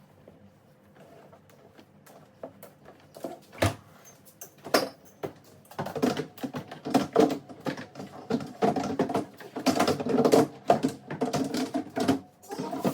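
Rapid clattering and knocking of containers and items being handled while a fridge is cleaned out: a few scattered knocks at first, then a dense run of clatter from about six seconds in.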